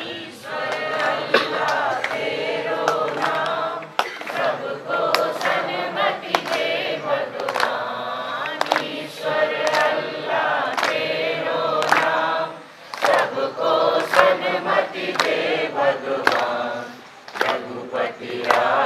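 A large mixed group of young voices singing a devotional prayer together, with short breaks between lines.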